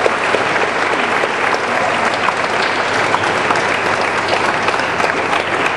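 Audience applauding steadily, many hands clapping at once to welcome a singer just introduced.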